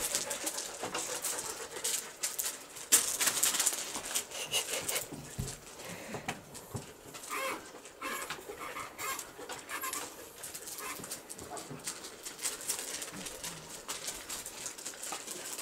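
Husky sniffing and rummaging around plastic dog houses and a crate, paws scuffing on gravel, with irregular scrapes and knocks, the sharpest about three seconds in.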